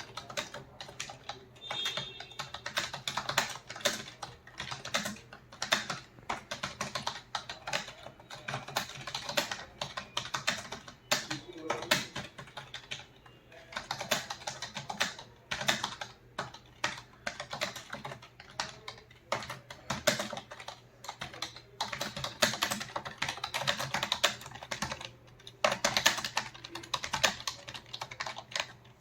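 Rapid typing on a computer keyboard: a continuous patter of key clicks with short pauses now and then, stopping near the end.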